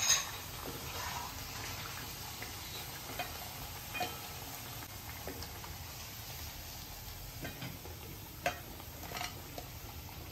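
Alu vadi (colocasia-leaf rolls) deep-frying in hot oil in a wok, a steady sizzle, with a metal slotted spatula scraping and tapping against the pan now and then as the fully fried rolls are lifted out.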